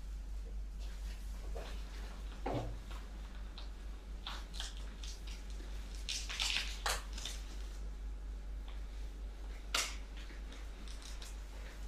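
Disposable plastic gowns, aprons and gloves being put on: scattered short crinkles, rustles and snaps, thickest about midway, over a steady low hum.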